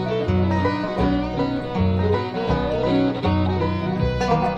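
Bluegrass band playing an instrumental break: picked banjo and acoustic guitar over a bass line that steps to a new note about every half second.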